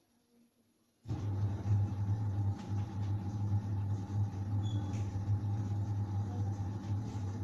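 A steady low mechanical hum, like a motor or appliance running, that starts suddenly about a second in and holds at an even level.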